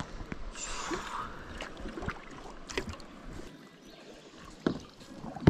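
Water splashing and lapping around a kayak, with a short splash about a second in and a few light knocks against the hull.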